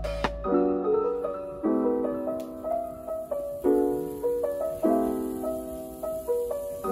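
Background piano music: chords struck about once a second, each fading before the next.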